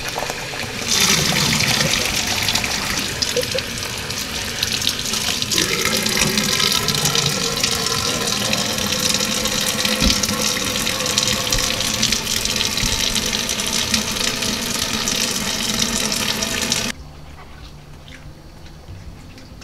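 Kitchen faucet running into a plastic bowl of salmon eggs in a stainless steel sink, the stream splashing steadily as the roe is rinsed and swirled. The water stops abruptly near the end.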